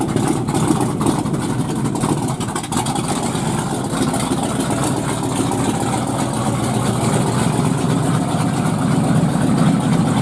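Pure stock race car engine idling steadily, a low rumble with no revving.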